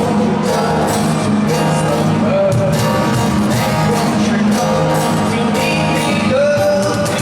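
Live rock band playing loudly: drums and electric guitars with a sung vocal line over them.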